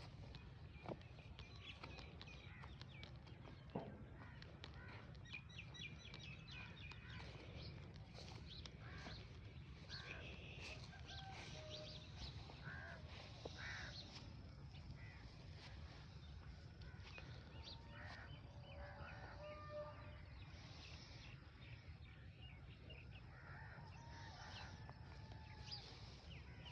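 Faint birds calling and chirping, many short scattered calls, over a steady low rumble of outdoor background noise.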